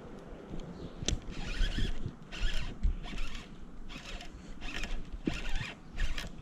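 Fishing reel buzzing in a series of short zipper-like spurts, about two a second, with a sharp click about a second in, as a hooked smallmouth bass is fought in.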